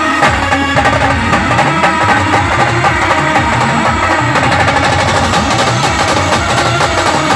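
Indian village band playing a folk song: melody instruments over steady drumming, the drum strokes growing denser and more regular about four seconds in.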